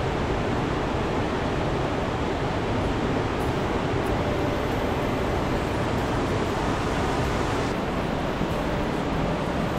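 The fast-flowing River Dee pouring over the Horseshoe Falls weir: a steady rush of water.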